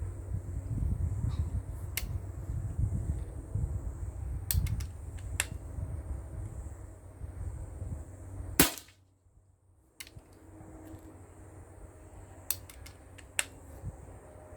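A single shot from a Steyr LG110 precharged air rifle: one sharp crack a little past halfway, the loudest sound here. Before it, wind buffets the microphone with a low rumble, and a few light clicks come before and after the shot.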